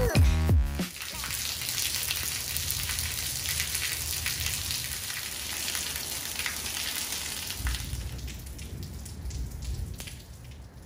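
A music track cuts off about a second in. Then rain falls steadily: an even hiss of drops with many small ticks, over a low rumble of wind on the microphone.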